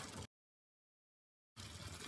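Near silence: the sound cuts out completely for over a second, with only a faint steady hiss just before and just after the gap.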